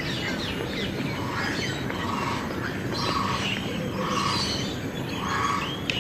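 A dense chorus of caged birds chirping and calling over one another, with one lower call repeated about once a second through the second half.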